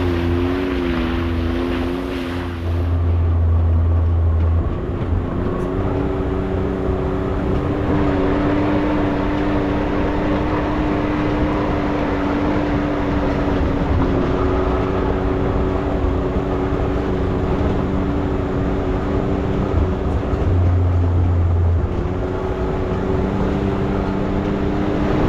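Can-Am Maverick X3 side-by-side's turbocharged three-cylinder engine running at a steady speed while driving along a trail. Its note wavers in the first few seconds, then holds steady, with a brief dip about three-quarters of the way through.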